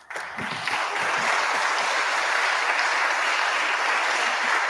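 Congregation applauding. The clapping starts right away, swells to full strength within the first second, then holds steady.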